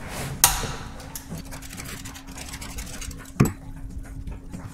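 Handling noises as a drain plug is backed out of the oil pan by hand over a plastic catch pan: a sharp click about half a second in and a heavier knock about three and a half seconds in, over a steady low hum.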